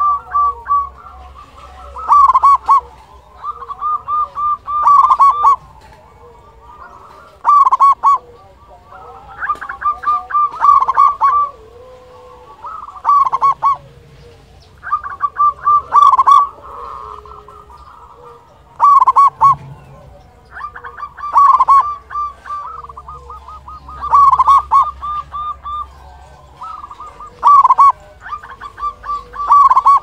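Zebra dove (perkutut) cooing its song over and over: phrases of quick rolling notes ending in a louder coo, repeated about every two to three seconds.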